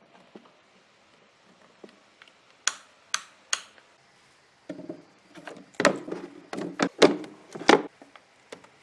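A series of sharp knocks: three strikes about half a second apart in the middle, then a quicker run of louder knocks with a short ringing tail near the end.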